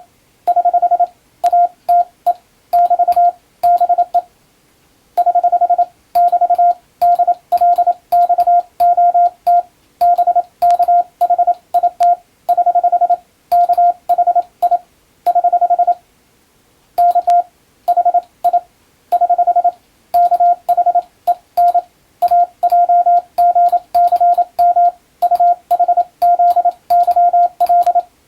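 Morse code (CW) sent with an electronic keyer: a single steady beep keyed on and off into quick dots and dashes, with a faint click at the edges of each element. It spells out Latin-alphabet text, with longer pauses between groups about four and sixteen seconds in.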